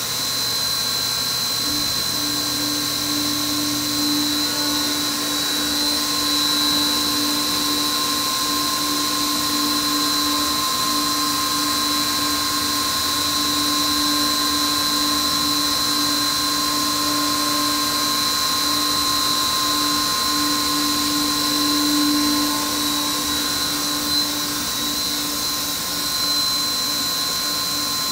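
Milltronics VMD30-F CNC vertical machining center running under power: a steady machine whine of several held tones over a hiss, with a lower tone joining about two seconds in.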